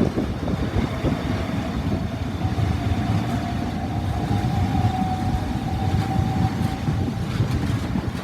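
Southeastern Class 395 high-speed electric multiple unit pulling away from the platform: a steady low rumble with an electric whine that rises slightly in pitch, then fades out near the end.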